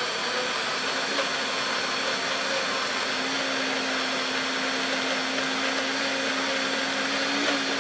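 Countertop blender motor running at a steady high speed, puréeing soaked mustard seeds into a smooth paste.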